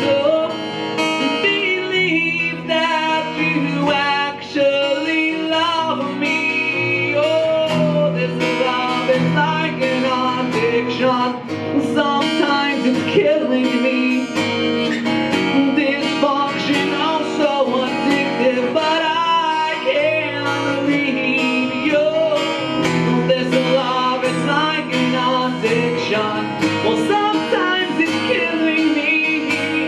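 Live acoustic rock performance: an acoustic guitar strummed steadily, with a wavering lead melody carried over it.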